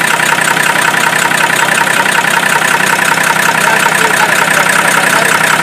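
Chevrolet D60 truck's diesel engine idling steadily with a new injection pump, after a long time standing. The mechanic reckons it sounds good and turns over freely, with the injection timing perhaps a little late.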